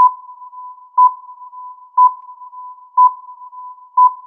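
Electronic countdown-timer sound effect: a steady high tone with a louder beep once a second, five beeps in all, counting down the five-second answer time of a quiz question.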